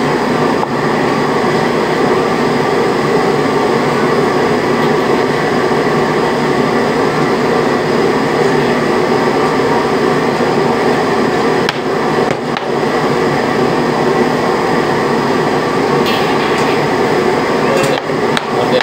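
A loud, steady rushing drone fills the kitchen throughout. A few sharp knocks of a cleaver on a wooden cutting board come about two-thirds of the way in and again near the end.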